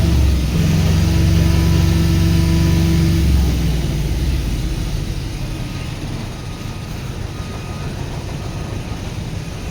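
A heavy vehicle's engine runs loudly with a steady low hum, then drops away about three and a half seconds in, leaving a quieter traffic rumble.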